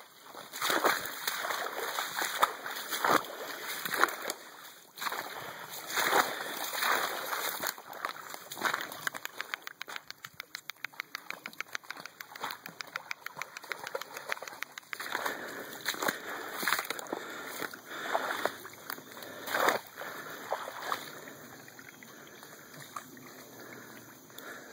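Wading footsteps splashing through shallow swamp floodwater, coming at an uneven pace with a quick run of rapid small splashes in the middle. The splashing dies down near the end.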